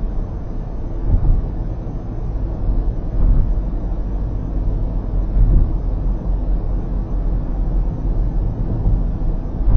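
Low, steady road and tyre rumble of a car at expressway speed, heard from inside the cabin, swelling a few times.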